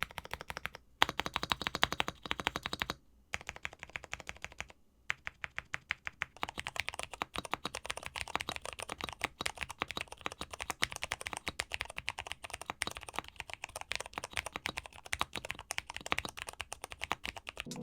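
Fast typing on a Kit Lilith mechanical keyboard with Cherry MX Purple tactile switches, Cherry-profile keycaps and two layers of tape mod. The keystrokes run in quick, continuous runs, with short breaks about one, three and five seconds in.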